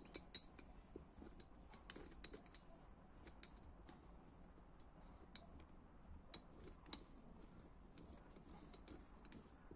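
Faint, scattered clinks and taps of small metal engine parts and tools being handled on a workbench.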